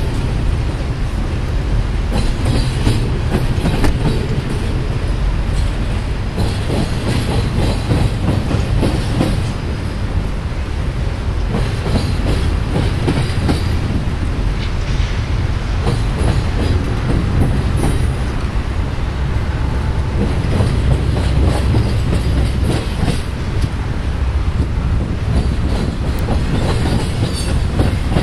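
Double-stack intermodal container train rolling past, its well cars making a steady heavy rumble with irregular clacking of wheels over the rail joints.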